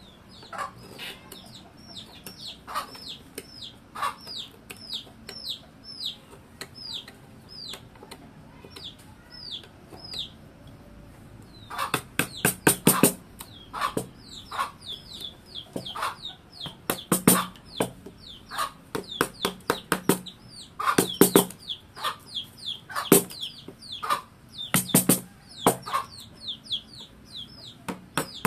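Mallet striking a steel carving chisel into wood: a few single taps early on, then quick runs of several sharp taps every few seconds in the second half. Throughout, a bird gives a steady string of short, high, falling chirps.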